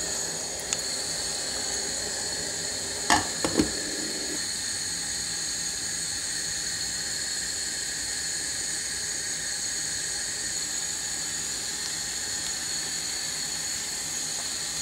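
A pot of sugar syrup boiling hard on a gas stove, making a steady hiss with a thin high whine throughout. A few light knocks come about three seconds in.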